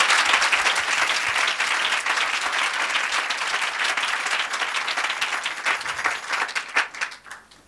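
Congregation applauding: a dense round of clapping that thins out and dies away near the end.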